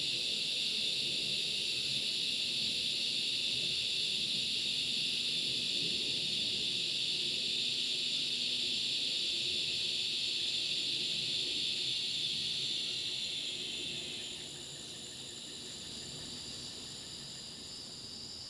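Steady high-pitched chorus of insects, which drops somewhat in level about fourteen seconds in.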